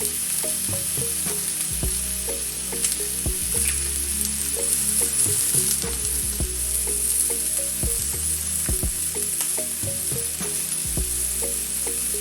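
Chicken pieces sizzling steadily in an oiled non-stick grill pan, a continuous high hiss.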